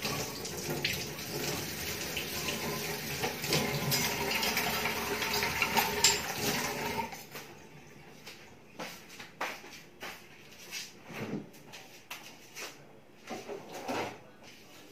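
Water running from a kitchen tap into the sink, which stops about seven seconds in, followed by scattered light knocks and clinks of kitchenware being handled.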